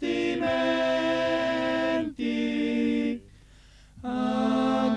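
Unaccompanied singing of an Italian folk song, with long held notes. It breaks for under a second just past the middle, then starts again.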